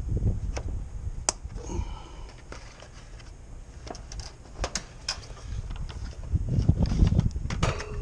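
Handling noise from a capacitor's mounting strap being wrapped and fitted by hand: scattered sharp clicks and short scrapes, with a cluster of clicks near the end. A low rumble of wind on the microphone swells at the start and again later on.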